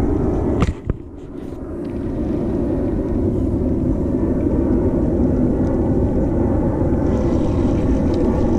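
Steady low rumble of wind buffeting the microphone. A couple of sharp clicks come about a second in, after which the rumble drops briefly and builds back up.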